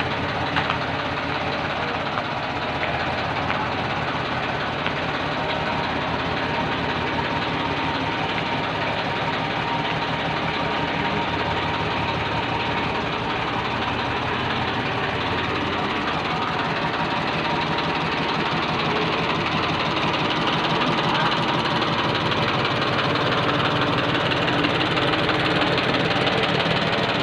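Tractor diesel engine running steadily with a rapid, even chug, pulling a loaded trailer at walking pace.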